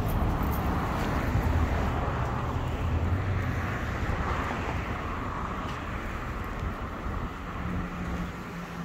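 Outdoor vehicle noise: a low engine rumble over a steady background of traffic, easing off after the first few seconds.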